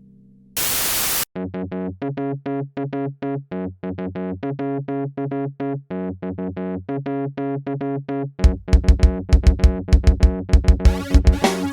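Electronic keyboard music: a short burst of noise, then a quick repeating pattern of short synth notes, with a heavy beat coming in about eight and a half seconds in.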